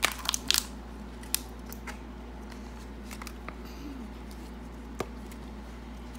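Crinkling foil wrapper and small plastic clicks of a chocolate egg being unwrapped and handled, a quick cluster of crackles in the first second, then a few scattered clicks.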